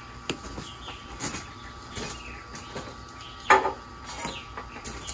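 Scattered light knocks and clatter, with small birds chirping faintly and one short, louder sound about three and a half seconds in.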